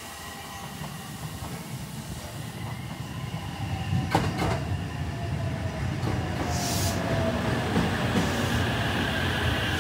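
Electric commuter train pulling into the platform, growing louder as it comes in. A sharp clack from the wheels comes about four seconds in, followed by a whine that falls in pitch as the train slows and a short hiss of air.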